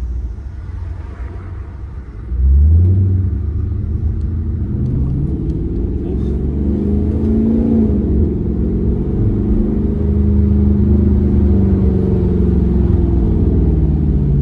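Car engine and exhaust heard on a drive: the engine eases off for about two seconds, then comes back on the throttle with a sudden rise and a climbing note, and settles into a steady deep drone.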